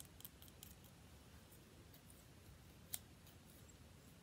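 Scissors being worked: faint clicks and snips of the metal blades in the first moments, then one sharper click about three seconds in.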